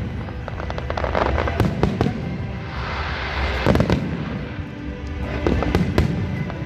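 Aerial fireworks shells bursting overhead in quick succession, a rapid run of bangs with a spell of dense crackling about three seconds in, over music playing underneath.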